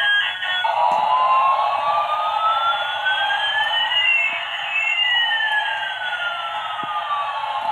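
A battery-powered light-up toy airliner's little speaker plays its electronic jet-engine sound effect, taking over from a beeping tune under a second in. It is a steady hiss under a held tone, with one whine sweeping slowly up and another sweeping slowly down across it.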